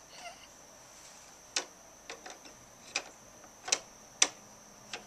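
Sharp hard-plastic clicks and knocks as small toy wheelie bins are handled and set against the rear bin lifter of a Bruder toy garbage truck: about six separate clicks a fraction of a second to a second apart.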